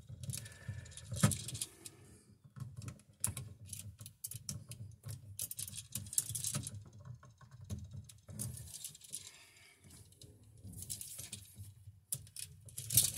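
Small clicks, taps and rustles of hands handling stiff copper electrical wire against a plastic GFCI receptacle, in irregular clusters with one sharp click about a second in.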